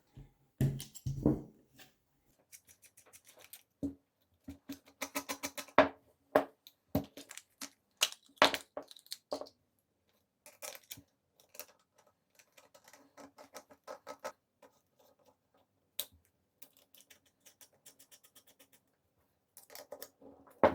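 Metal parts of a hand rivet nut tool being handled: the threaded mandrel and nosepiece being unscrewed and swapped, with scattered clicks, clinks and light rattles, busiest about five to nine seconds in.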